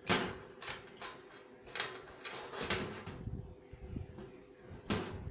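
Metal multitool being handled, its tools folded and worked: a few sharp clicks and knocks, the loudest just after the start and another near the end.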